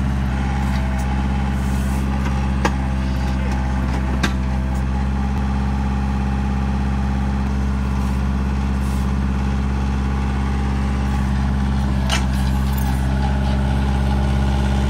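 A 1994 Kubota L4200 tractor's diesel engine running steadily while it powers the backhoe. A few sharp knocks come about three, four and twelve seconds in.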